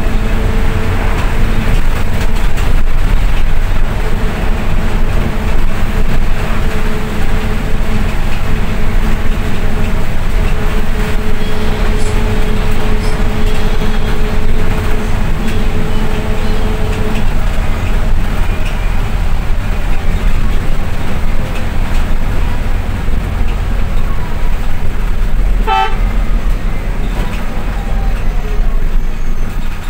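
A moving bus: a loud, steady low engine and road rumble with a steady whine through much of it. There is a short horn toot about 26 seconds in.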